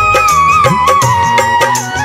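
Instrumental interlude of a Hindi devotional bhajan: a melody instrument plays a gliding tune over a steady percussion beat and bass.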